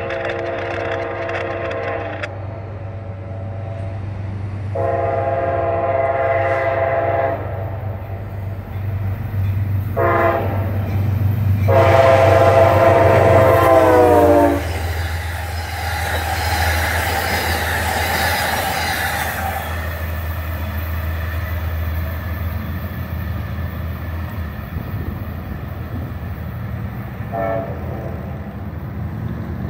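Amtrak Genesis diesel locomotive No. 710 sounding its multi-note horn for a grade crossing: long, long, short, long, the last blast loudest and dropping in pitch as the locomotive goes by. The diesel engine drones underneath, then the passing train's wheels rush by and fade, with a faint horn near the end.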